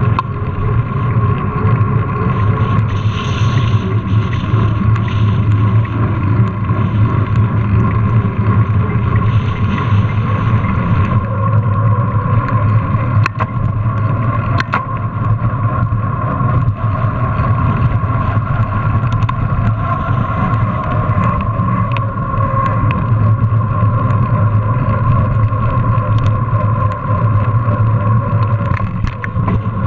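Steady, loud rumble of a mountain bike riding over paving, heard through a bike-mounted GoPro: tyre and wind noise with a constant hum, and a few sharp knocks from bumps midway through.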